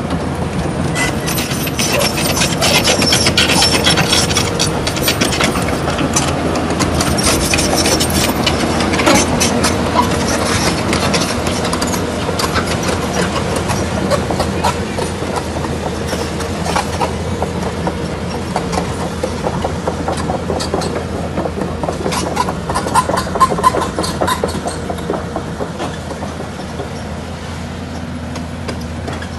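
Excavator working: its diesel engine runs with a steady low drone under many clanks and rattles, louder in stretches near the start and again a little after two-thirds of the way through.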